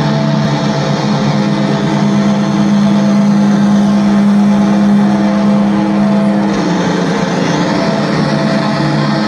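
Amplified electric bass and guitar playing live, holding loud, sustained droning notes that change pitch about six and a half seconds in.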